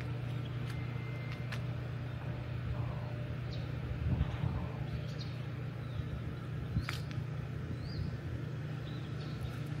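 Outdoor ambience: a steady low hum with a few short bird chirps, faint clicks and soft thumps.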